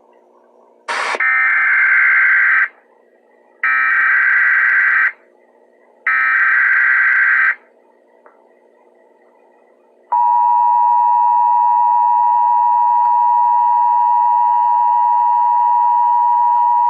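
Emergency Alert System tones: three buzzy, screechy bursts of SAME digital header data about a second apart. A couple of seconds later comes the two-tone attention signal, a loud steady tone that sounds on for about seven seconds.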